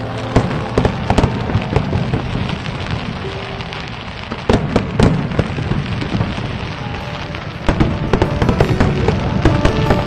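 Fireworks display going off: repeated bangs and crackling, with sharp reports about four and a half and five seconds in and a denser run of bangs from about eight seconds on.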